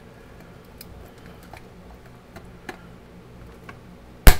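Faint ticks and scrapes of a small tool working at the retaining tabs of a snap-in switch inside a metal case, then one sharp, loud click a little after four seconds in as a tab snaps free.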